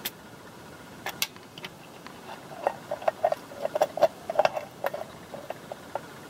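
Light metallic clicks and taps as the Powerglide transmission's low-band servo piston and return spring are pushed and turned into their bore in the case. There are a few sharp clicks, then a run of quick small ticks around the middle.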